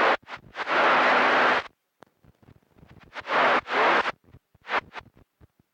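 CB radio receiver's squelch opening and closing on short bursts of static hiss from keyed carriers, with dead silence between them: a burst of about a second early on, two back to back around the middle, and a brief one near the end.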